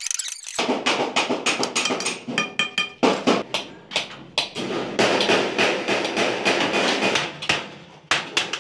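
Hammer striking galvanized sheet metal in quick, uneven blows, a few of them ringing briefly.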